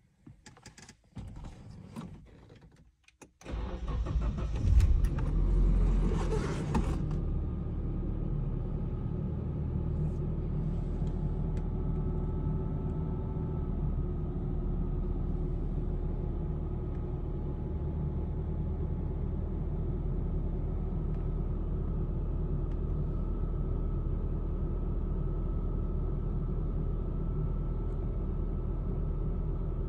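Nissan 240SX's 2.4-litre four-cylinder engine cold-starting: it catches about three and a half seconds in, flares up briefly, then settles into a steady idle.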